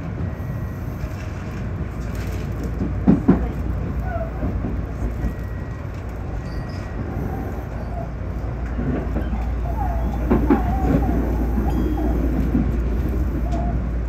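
Electric commuter train running, heard from the driver's cab: a steady low rumble, with wheels knocking over rail joints about three seconds in and a few brief squealing tones from the wheels after about ten seconds.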